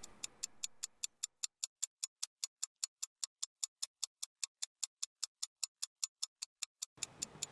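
Ticking sound effect: an even run of sharp ticks, about five a second, laid over an edited transition with the room sound cut away.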